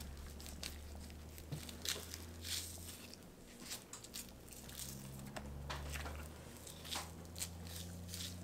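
Boning knife slicing a flap of meat off an elk top round on a wooden cutting board: faint, scattered tearing of flesh and small clicks of the blade, over a steady low hum.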